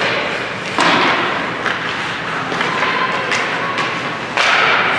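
Ice hockey play in a rink: two loud bangs, about a second in and near the end, each followed by a short wash of noise, with lighter clacks between them.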